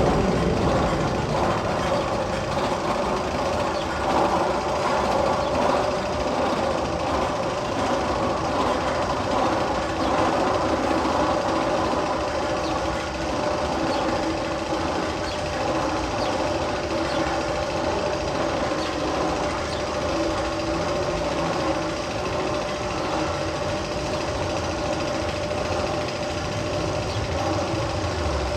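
Ride sound effect played over tunnel speakers: a steady mechanical rumble with a constant hum and fine rapid ticking, holding the same level throughout.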